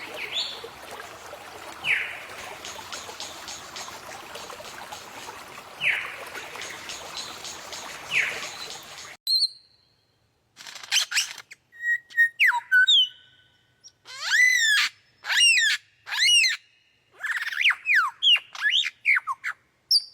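Lyrebird calling: sharp falling whistles every few seconds over a steady outdoor hiss, then, after an abrupt change about nine seconds in, a quick run of varied chirps, squawk-like calls and fast falling whistles.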